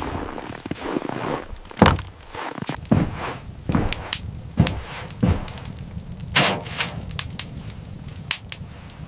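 A series of irregular knocks and thuds, about a dozen, the loudest a little under two seconds in, with a steady low hum underneath from about halfway through.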